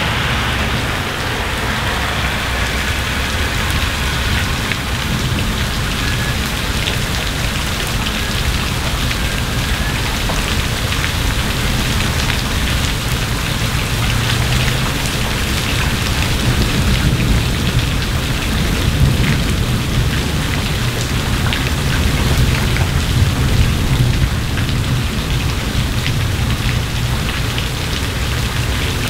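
Heavy rain falling steadily on pavement and foliage, with a low thunder rumble that swells through the second half. At the very start the hiss of a car's tyres on the wet road fades away.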